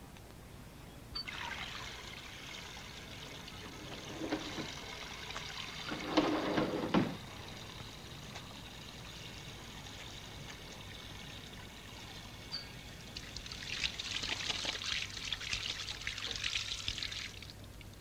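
Water running from a tap into a washroom basin, starting about a second in and stopping shortly before the end, with a heavier splash about six seconds in and louder, more broken splashing over the last few seconds.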